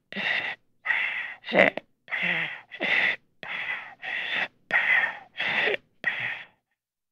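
A person's rapid, gasping breaths in and out, about two a second, performed as the last breaths of someone dying; they stop abruptly about six and a half seconds in.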